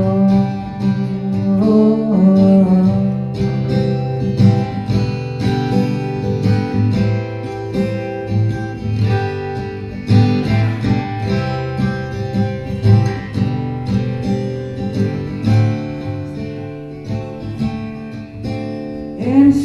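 Acoustic guitar strummed in a steady rhythm, an instrumental break between the sung verses of a folk song.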